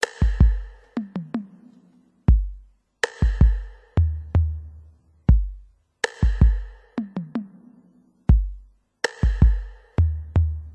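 Electronic drum-machine beat with no melody: deep bass-drum hits, a bright cymbal-like crash about every three seconds, and quick tom hits falling in pitch in between.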